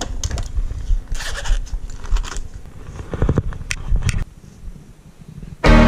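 Uneven rustling, knocks and clicks of handling and movement close to the microphone, over a low rumble. Music comes in sharply near the very end.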